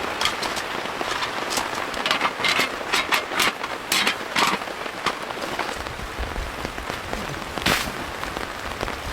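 Steady rain with many sharp, close individual drop impacts, heaviest between about two and four and a half seconds in. One loud drop strikes near the end, and a low rumble comes in about six seconds in.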